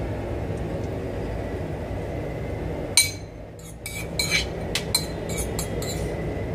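Metal spoon clinking against a small ceramic bowl while scooping out sauce: one sharp clink about three seconds in, then a quick run of lighter clinks. A steady low hum runs underneath.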